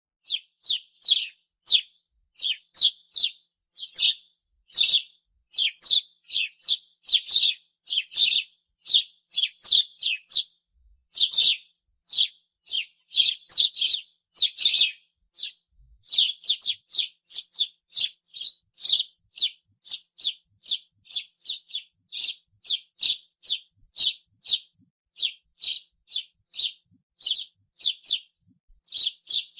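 House sparrow giving a long, steady series of short cheep calls, about two a second.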